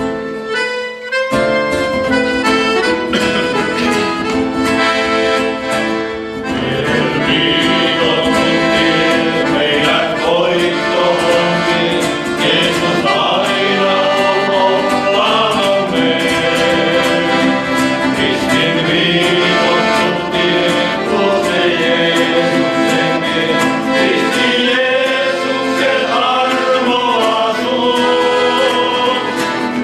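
A Christian song played live by a men's vocal group with button accordion and acoustic guitar. It opens with an accordion-and-guitar introduction, and the men's voices come in together about six seconds in.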